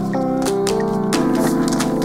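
Background music: held synthesizer chords that change about halfway through, over a steady beat.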